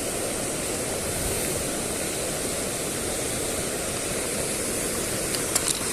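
Steady rushing of a mountain river's water flowing over rocks, with a few faint clicks near the end.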